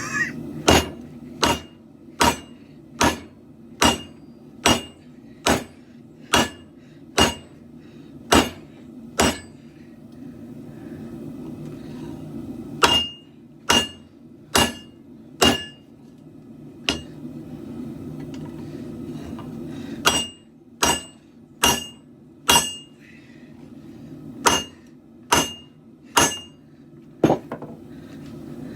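Hammer blows on a katana blade being forged on an anvil, about one ringing strike every three-quarters of a second, in three runs with short pauses between them. A steady low hum runs underneath.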